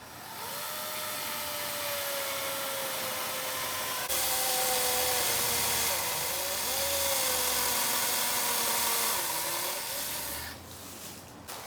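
Kobalt 24-volt cordless electric chainsaw cutting into a large tree trunk: a motor whine over the chain rasping through wood, its pitch slowly sinking under load. It gets louder about four seconds in and stops shortly before the end.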